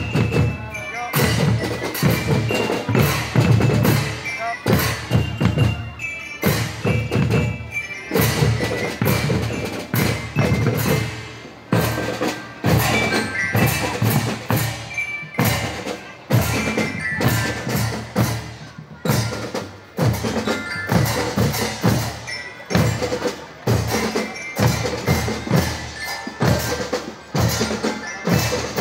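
School drum band playing: marching bass drums and snare drums beating a steady march rhythm, with high bell tones from mallet percussion carrying the tune over the drums.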